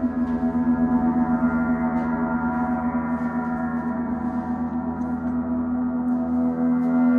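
Large hanging gongs played in a sustained, continuous ringing wash of overtones over a steady low tone, swelling louder near the end, as sound-healing accompaniment.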